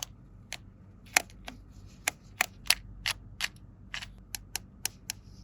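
Small plastic toy pieces clicking and tapping as they are handled: a string of sharp, irregularly spaced clicks, about fifteen in all.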